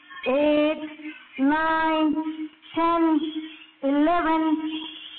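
A high singing voice in a slow song or chant, about four phrases of roughly a second each, each note held steady before a short break.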